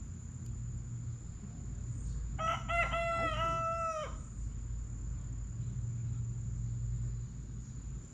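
A rooster crowing once, about two and a half seconds in, a call of under two seconds that falls away at the end, over a steady low rumble.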